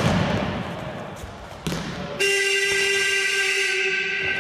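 Horn in a futsal hall, the kind used to signal the game clock, sounding one steady note for about three seconds, starting about two seconds in. Before it, a short thud over hall noise.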